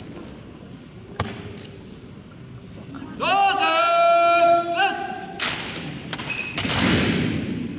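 A drill commander's long drawn-out shouted command, rising at its start and then held, followed by two loud crashing thuds as the drill team moves in unison; a single sharp knock comes about a second in.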